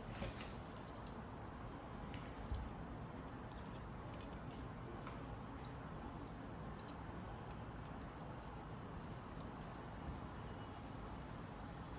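Faint, scattered clicks and light handling sounds as an earphone's speaker driver is measured, with one slightly louder click about two and a half seconds in, over a steady low hiss.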